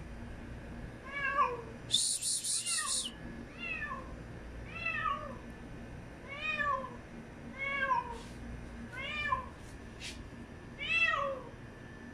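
A stray cat stranded on a rooftop and unable to get down meows over and over, one rising-and-falling call about every second and a half. About two seconds in there is a brief burst of high hissing noise.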